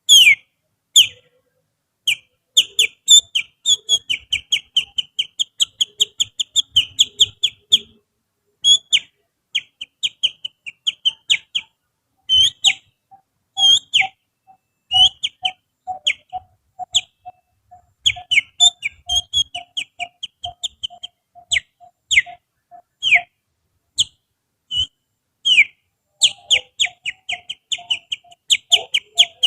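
Finger whistling imitating the song of a kutilang sutra bulbul: rapid runs of short, sharp chirps and downward-sweeping whistle notes, in bursts with brief pauses. Through the middle stretch a softer, lower pulsing note runs underneath.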